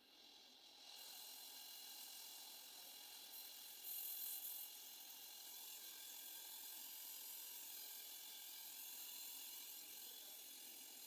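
Steady hiss of pressurised gas rushing through a deep freezer's refrigerant tubing during flushing. It builds up within the first second and has a brief louder surge about four seconds in.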